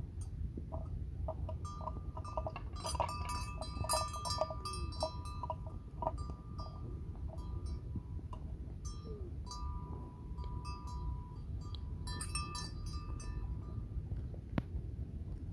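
Metal livestock bell clinking and ringing in irregular clusters of strikes, busiest about three to five seconds in and again around twelve seconds, over a steady low rumble.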